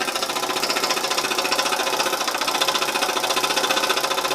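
Stuart ST model steam engine running steadily under load, a fast, even beat of exhaust and clatter. It is working hard to drive the MLI steam plant's gearing.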